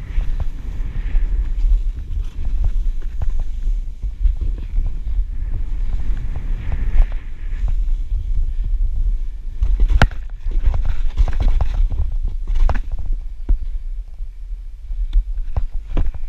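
Wind buffeting a body-worn camera's microphone as a snowboard rides through deep powder, with the hiss of snow under the board and scattered knocks and thumps, the sharpest about ten seconds in.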